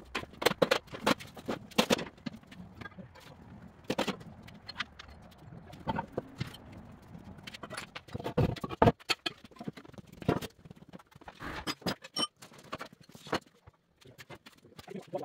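Scattered knocks, clanks and scrapes as metal scrap and a hand truck are moved about on a concrete shop floor, with a louder clatter about nine seconds in.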